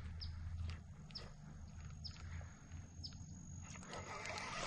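A bird calling: short, high chirps that fall in pitch, repeating about once a second, over a thin steady high whine.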